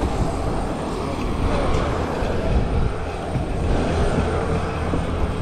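Seaplane's propeller engine running with a steady, deep drone.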